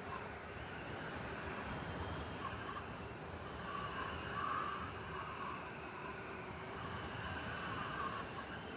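City blizzard ambience: a steady hiss of storm wind over a low rumble of distant traffic, with a faint higher whine that swells briefly about halfway through.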